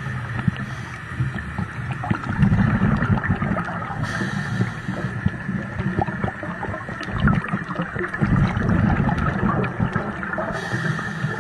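Underwater sound on a coral reef: a muffled watery hiss with low rumbling surges, the longest starting about two seconds in and again about eight seconds in, and many small scattered clicks.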